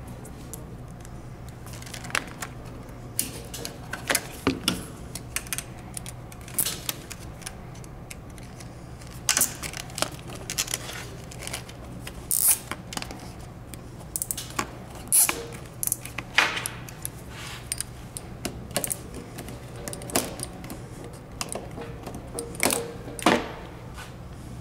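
Irregular clicks, taps and rustles of a wiring harness in plastic corrugated loom, with its plug connector, being handled and fitted against the plastic parts of a Grammer MSG65 seat. A steady low hum runs underneath.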